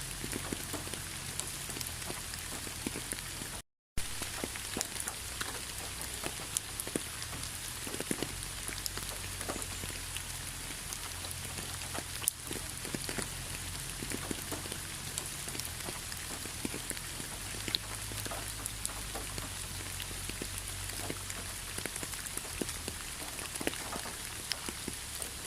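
Steady rain falling, an even hiss with many separate drops ticking on a surface. The sound cuts out briefly to silence a little under four seconds in, then carries on.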